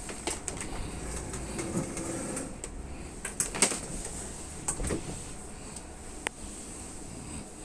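Irregular clicks, knocks and rustles of objects being handled, with the loudest knock about three and a half seconds in and a sharp ringing click about six seconds in.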